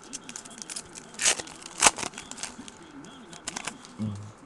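Football trading cards being handled and flipped, with crinkling of the foil pack wrapper: a string of sharp clicks and rustles, the two loudest snaps a little over a second and about two seconds in.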